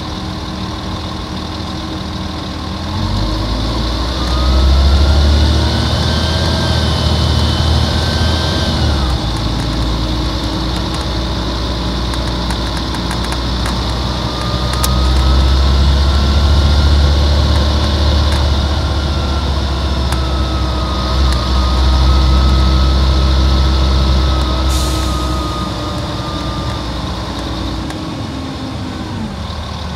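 A Volvo Olympian double-decker bus's Volvo D10A-245 six-cylinder diesel engine running at idle, then pulling under load from about three seconds in, easing off about nine seconds in, and working hard again from about fourteen seconds before dropping back near the end. A whine rises and falls with the engine, and there is a brief air hiss about 25 seconds in.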